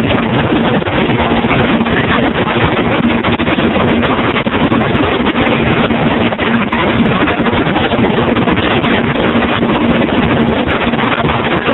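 Boat underway on a 1971 Chrysler 70 hp two-stroke outboard: a steady engine tone under loud rushing wind and water noise.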